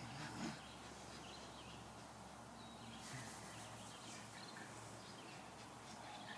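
Quiet outdoor background noise, with a slight bump about half a second in and a few faint, short high chirps in the middle.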